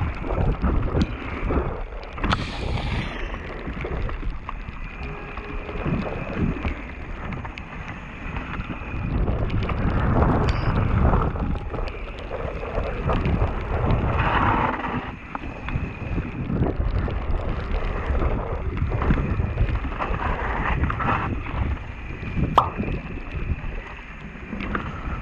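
Mountain bike descending a wet dirt and gravel trail, heard from the rider's action camera: wind rushing over the microphone and tyres rumbling over the ground, with frequent clatter and knocks from the bike over bumps. One sharp knock stands out near the end.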